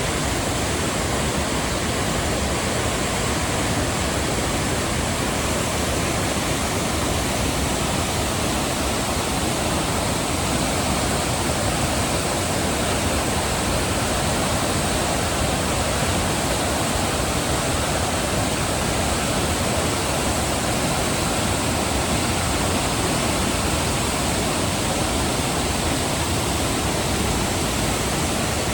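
Flooded river in spate: fast, turbulent water rushing with a loud, steady roar.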